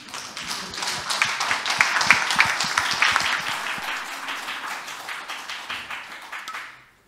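Audience applauding: many hands clapping, building over the first second, then tapering off and stopping just before seven seconds in.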